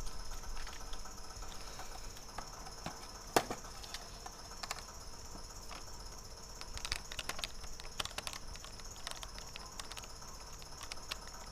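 Scattered small plastic clicks and taps as the case of an Acer Veriton N281G mini PC is worked loose by hand. There is one sharper click about three seconds in and a quicker run of clicks past the middle.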